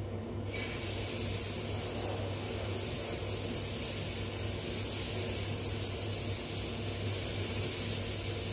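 Water spraying from a hose for cleaning, a steady hiss that starts suddenly about a second in, over a low steady hum.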